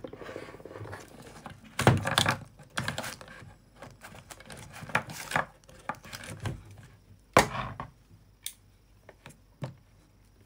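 Handling noise close to the microphone: irregular knocks, clicks and rustles of things being picked up and set down, with the sharpest knocks about two seconds in and again about seven seconds in.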